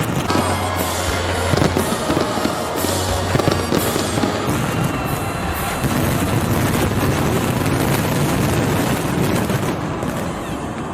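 Fireworks bursting and crackling in a dense, continuous barrage, with music playing underneath.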